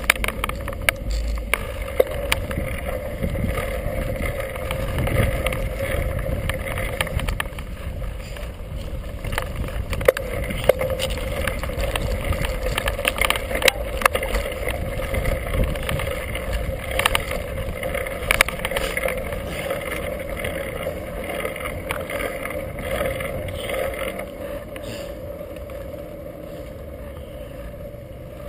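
Mountain bike ridden over a dirt trail, heard from the handlebars: new knobby Kenda tyres rolling and crunching over dirt and leaves, with frequent sharp rattles and clacks from the bike jolting over bumps. The noise eases near the end as the bike rolls onto smooth pavement.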